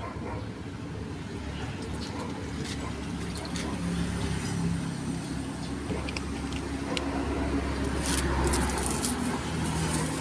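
A motor vehicle's engine running, a low rumble and hum that builds and is loudest about eight seconds in, with a few faint clicks.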